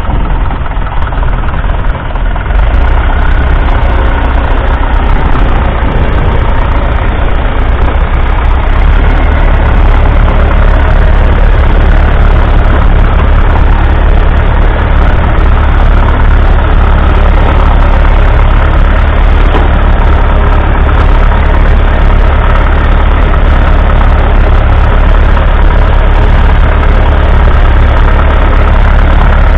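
1957 Massey Ferguson 35's 2.3-litre four-cylinder diesel engine running steadily while the tractor pulls a two-furrow plough. The engine gets louder about two and a half seconds in, then holds a steady, loud, deep running note.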